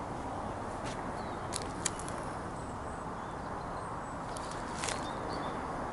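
Steady low background noise with a few light, sharp clicks, a cluster about one and a half to two seconds in and another near five seconds, and faint high chirps of small birds.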